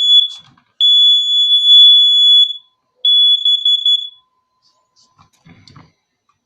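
Kidde detector's alarm horn sounding on a test-button press: a loud, high-pitched steady beep that ends just after the start, then two more long beeps, the last one shorter and wavering, stopping about four seconds in. A faint rustle follows.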